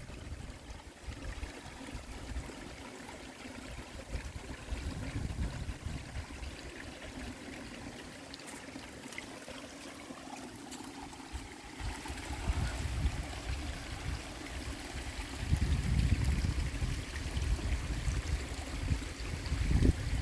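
River water flowing steadily, with low rumbling surges now and then, strongest in the last few seconds.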